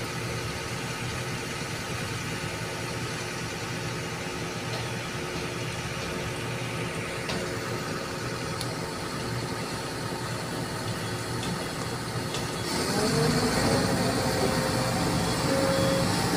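Diesel engine of a Sumitomo hydraulic excavator running steadily. About thirteen seconds in, the engine sound grows louder and a higher steady tone joins in.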